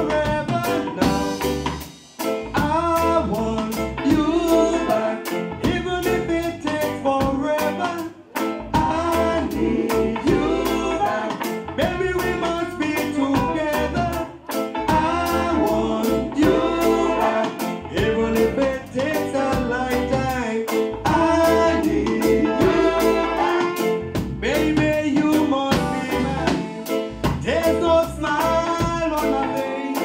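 A live band playing, with a male lead vocalist singing over drum kit and electric guitar.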